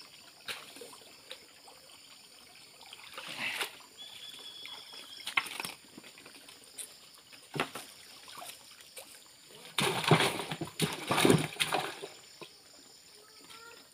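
Muddy pond water splashing and sloshing as a person wades and works a hand landing net with a fish in it, in short irregular bursts. A louder run of splashing comes about ten seconds in.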